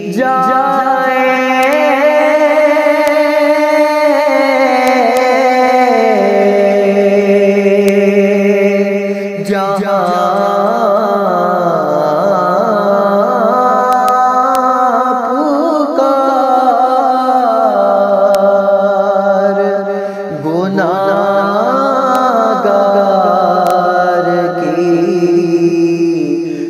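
A male voice singing an Urdu naat, drawing the word 'jaye' out into long, wavering melismatic phrases with brief breaks about ten and twenty seconds in.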